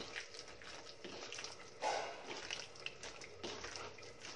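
Raw chicken pieces being mixed into a wet curd, lemon and spice marinade: faint, irregular squelching with small clicks, one louder wet stir about two seconds in.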